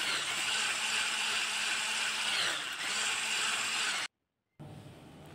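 Electric hand mixer whipping cold cream in a glass bowl, the beaters running steadily through cream that is thick and nearly firm. It cuts off suddenly about four seconds in.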